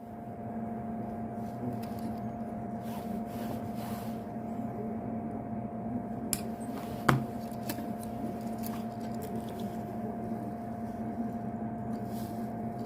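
A steady electrical hum with two held tones, one low and one higher, under faint small handling ticks and one sharper click about seven seconds in.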